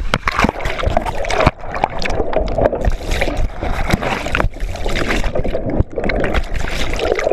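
Turbulent water splashing and churning around a camera being tossed in the waves, with frequent knocks and thumps on the microphone.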